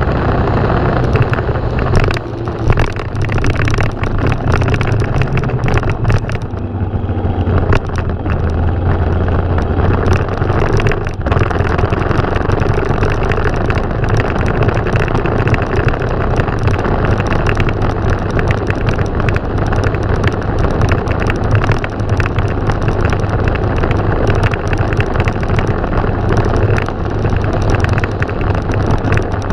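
Motorcycle engine running steadily under way, its low note stepping down about six seconds in, with wind and road noise over it.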